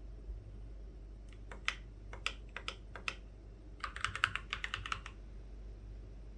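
Typing on a mechanical keyboard with pre-lubed NX Snow switches and sound-dampening foam, on a wooden desk. A few separate keystrokes come first, then a quick, dense burst of typing about four seconds in, followed by a pause.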